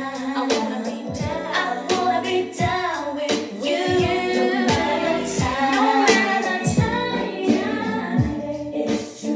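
Yorkville EF10P powered speaker playing a song with female vocals and a steady drum beat.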